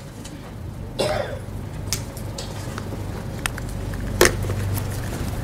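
Scattered sharp clicks and knocks from a laptop being worked, the loudest a little past four seconds in, with a short cough about a second in, over a low steady hum.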